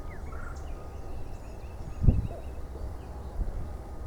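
Wind rumbling on the microphone, with a bird's rapid series of short falling chirps in the distance and one loud thump about halfway through.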